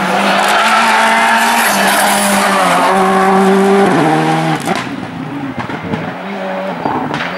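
Rally car engines at full throttle on a stage, the pitch climbing and dropping in steps through quick gear changes. About halfway through the sound cuts to a quieter second car.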